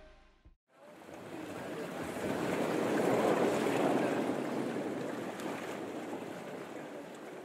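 Sea water rushing and washing, swelling to a peak about three seconds in and then slowly fading.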